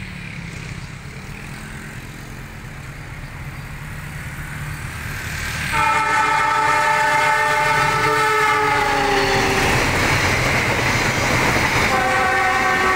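A train drawing near and passing: its rumble grows for several seconds, then the locomotive's horn sounds a long chord-like blast about halfway through, dropping in pitch as it goes by. Wheel and carriage rumble follow, and a second, lower horn blast starts near the end.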